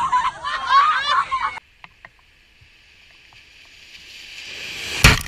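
High-pitched voices crying out, cut off abruptly after about a second and a half. Then a car approaches on a wet road, its tyre hiss growing steadily louder until a sudden loud splash near the end as it hits the flooded stretch of road.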